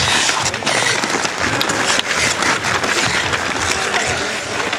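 Ice hockey play: a steady hiss of skates cutting the ice with frequent sharp clacks of sticks and puck.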